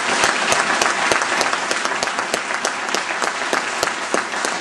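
Audience applauding, many hands clapping together; the applause eases off slightly toward the end.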